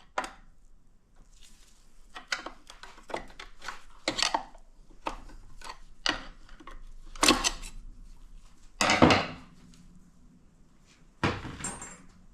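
Metal automatic-transmission parts being handled during disassembly: a series of irregular clinks, clanks and short scrapes of steel on steel. The loudest clatters come about 7 and 9 seconds in, and one near the end rings briefly.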